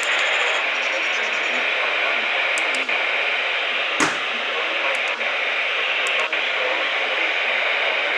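Radio receiver hissing with static, with no voice coming through, and one sharp click about four seconds in.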